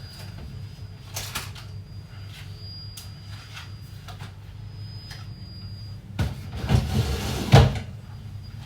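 Kitchen handling sounds: a few separate clicks and knocks, then a louder run of knocks and rattles about six seconds in, with the sharpest knock near the end, over a steady low hum.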